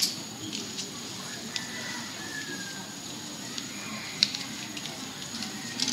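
Quiet room noise with hiss, broken by a few faint, scattered clicks and rustles of paper envelopes being handled near the microphone.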